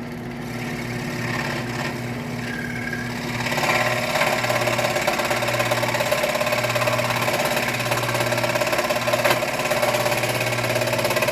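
WEN scroll saw running, its reciprocating blade cutting a piece of wood with a steady, pulsing machine hum that grows louder and fuller about three and a half seconds in. The owner fears the blade is struggling with wood that may be a little thick for it.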